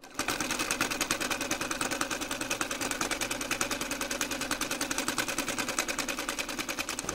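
Electric sewing machine running steadily at speed, a fast, even rhythm of needle strokes.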